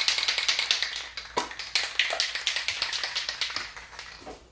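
Aerosol spray paint can being shaken, its mixing ball rattling in rapid clicks, with a short pause a little over a second in.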